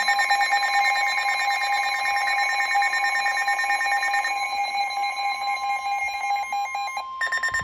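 Emergency Alert System attention signal: a loud, steady two-tone alert tone sounded to announce a severe thunderstorm warning.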